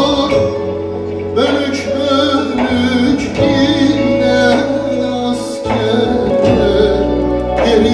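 Turkish folk music from an ensemble: a wavering melody line over steady low notes that drop out and come back between phrases.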